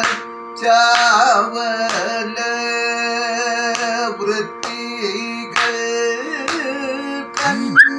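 A man singing a Kathakali padam in Carnatic style over a steady drone, his voice bending and ornamenting the notes. Sharp beats keep time about once a second, with one loud knock near the end.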